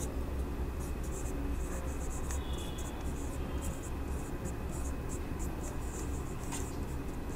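Felt-tip marker writing on a whiteboard: a quick, irregular run of short strokes as letters are written, over a steady low hum.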